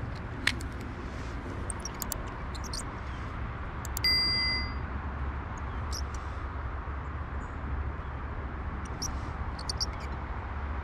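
A single bell-like ding about four seconds in, fading within a second: the sound effect of an on-screen subscribe-button animation. It sits over a steady low wind rumble on the microphone, with a sharp click near the start and scattered light clicks.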